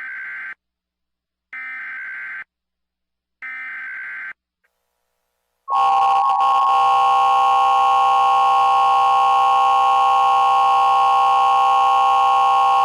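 Emergency Alert System opening: short screeching bursts of digital data tones (the SAME header), the end of one and then two more about a second apart, followed about six seconds in by the louder, steady two-tone EAS attention signal.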